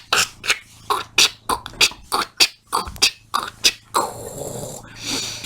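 A person beatboxing with the mouth: a quick run of short pops and clicks, about four a second, followed by two breathy hisses near the end.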